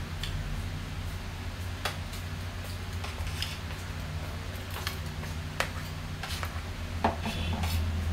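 Scattered small clicks and crinkles of hands pulling apart roast chicken in aluminium foil, over a steady low hum.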